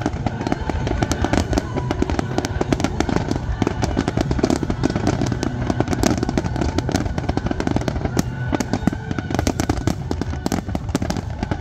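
Dense fireworks barrage: rapid, overlapping bangs and crackles with no break, over a continuous low rumble.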